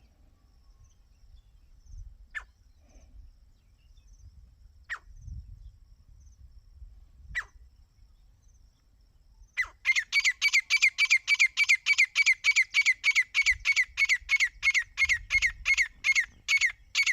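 A partridge calling. It gives three single sharp calls about two and a half seconds apart, then, about ten seconds in, breaks into a loud, rapid run of repeated calls at about four a second.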